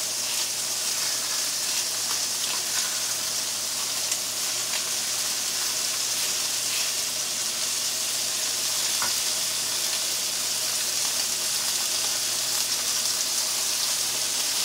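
Filet mignon steaks and lamb chops sizzling steadily as they sear in two cast-iron skillets, with a few small pops and crackles.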